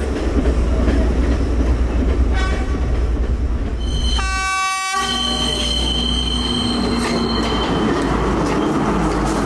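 Train running with a steady low rumble; its horn gives a faint short blast about two seconds in and a louder blast of about a second around four seconds in, followed by a high steady wheel squeal lasting a few seconds.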